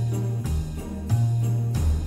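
Instrumental background music with jingle bells over a steady beat and a moving bass line.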